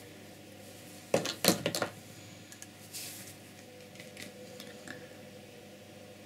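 Handling noises from painting tools at a table: a quick cluster of sharp clicks and knocks between one and two seconds in, then a few faint taps and scrapes as a brush picks up paint from a plastic palette tub.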